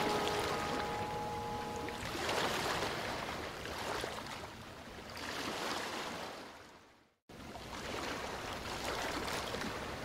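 A soundtrack of rushing water, like waves or a stream, swelling and fading every couple of seconds, with a brief drop to silence about seven seconds in. The last held notes of a melody fade out during the first two seconds.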